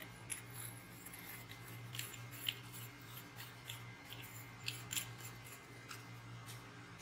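Faint scattered metallic clicks and light scraping as the aluminium handle sections of a portable folding shovel are handled and screwed together, with the clearest clicks about two and a half seconds and five seconds in. A steady low hum sits underneath.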